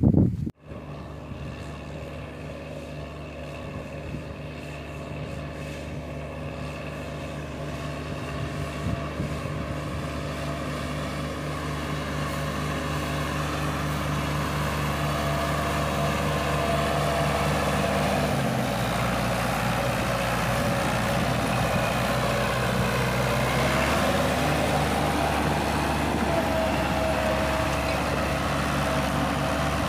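Massey Ferguson tractor's diesel engine running steadily while it pulls a disc harrow, growing louder as it comes closer. About 18 seconds in, its note drops lower and stays there.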